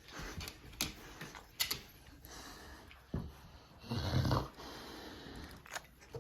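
American Bulldog making a short breathy sound about four seconds in, with a few light clicks and taps before it.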